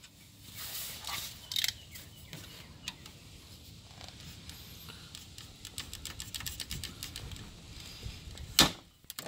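Long plastic zip tie being pulled through its locking head: a quick run of small ratcheting clicks, then one sharper snap near the end.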